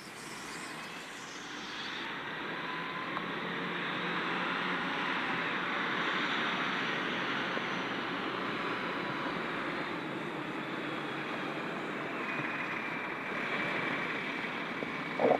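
Military vehicles, a heavy tactical truck and Humvees, driving past on a road: engine and tyre noise that swells over the first few seconds and then holds steady.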